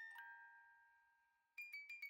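Soft background music of ringing, bell-like struck notes. One note dies away over the first second and a half, then a quick run of notes starts near the end.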